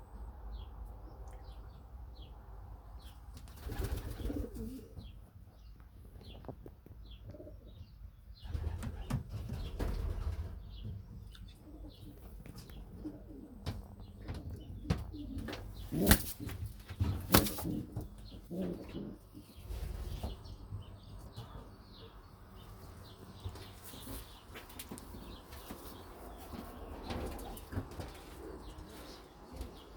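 Pigeons flapping their wings in a few short bursts, with some cooing. Two sharp claps about a second and a half apart around the middle are the loudest sounds.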